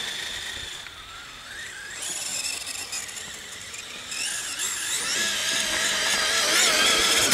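Traxxas E-Maxx RC monster truck's brushless electric motor and drivetrain whining, the pitch rising and falling with the throttle as it drives through deep snow. It grows louder about two seconds in and is loudest near the end.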